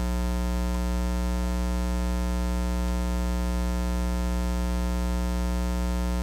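Steady electrical mains hum: a low, even buzz with many overtones, unchanging throughout.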